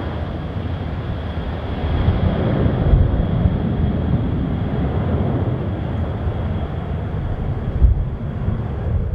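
Kawasaki C-2 transport's twin turbofan engines at takeoff power as it climbs away: a deep, steady rumble with a thin steady whine on top.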